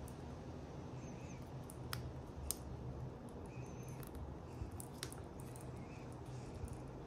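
A few sharp, light clicks from a metal link watch bracelet being fitted to a watch case, over a low steady background hum.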